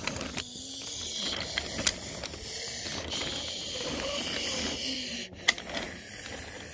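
Wooden toy train cars pushed by hand along wooden track: a steady rolling rush from the wheels, with a few sharp clicks, the loudest about five and a half seconds in.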